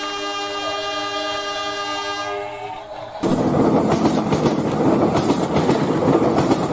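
A horn sounds one long, steady chord that fades out about three seconds in. A loud rumbling clatter follows and runs on, like a heavy vehicle running by.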